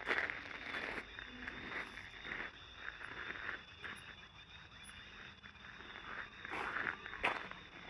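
Footsteps walking outdoors, irregular and uneven, with a steady high drone of night insects behind them and a few faint short chirps.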